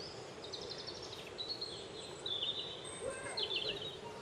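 Small songbirds calling in short, rapid high-pitched trills, about four times, over steady low outdoor background noise.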